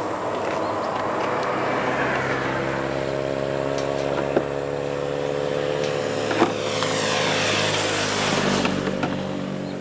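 A motor vehicle's engine running steadily, swelling and fading as a vehicle passes about two-thirds of the way through. Two sharp clicks stand out, one just before the middle and one a couple of seconds later.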